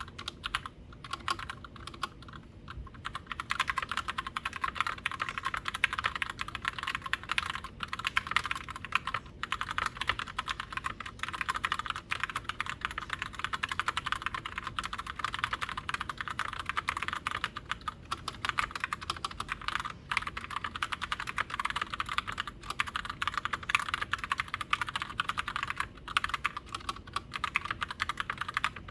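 Fast, continuous typing on a mechanical keyboard with Gateron Brown tactile switches: a dense stream of key clacks, with a few short pauses.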